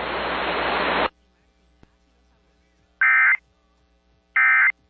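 Radio static hiss that cuts off about a second in, followed by two short, identical buzzing bursts of EAS digital data tones about a second and a half apart. Their shortness and spacing fit the End of Message (NNNN) SAME bursts that close an emergency alert.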